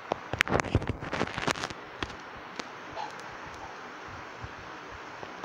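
A quick run of sharp cracks and pops in the first two seconds, then a few scattered cracks, over a steady hiss.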